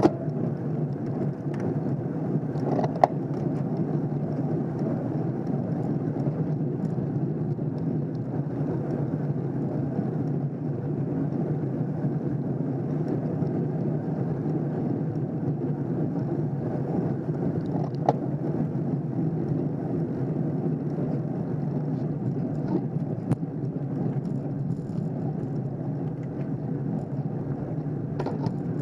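Steady low rumble of a road bicycle climbing in a pack of racers, heard through a bike-mounted camera: tyre, drivetrain and wind noise, with a few sharp clicks about three, eighteen and twenty-three seconds in.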